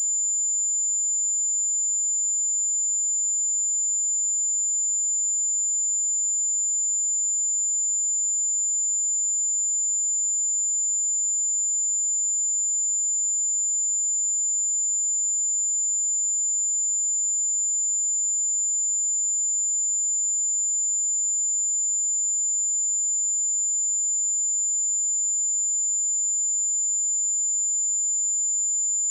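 A steady, high-pitched pure sine-wave test tone at 7097 Hz, held at a constant level.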